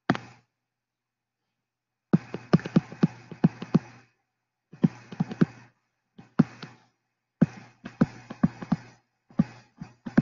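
A stylus pen tip tapping and scratching on a tablet screen during handwriting, in clusters of quick clicks separated by short pauses.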